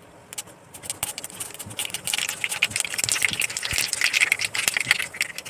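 Mustard seeds spluttering in hot oil in a nonstick kadai, a fast crackle of pops over a sizzle. The crackle starts sparse and grows dense and loud after about a second. This is the popping of a South Indian tempering (tadka), the sign that the oil is hot and the seeds are bursting.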